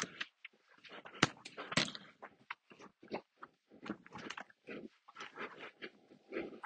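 Soccer ball being dribbled in close control: quick, irregular foot touches and shoe scuffs on the ball, with a few sharper hits around the first two seconds.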